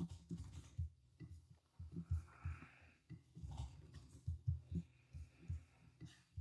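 Faint, irregular low thuds of mouse clicks and key taps carried through the desk into the microphone, a few a second, with faint breathing.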